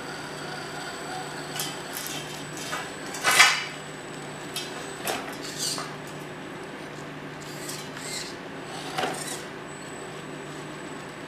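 Everest 10 1/10-scale RC crawler climbing over steel frame bars, its tyres and plastic body knocking and clinking against the metal in irregular knocks. The loudest knock comes about three seconds in.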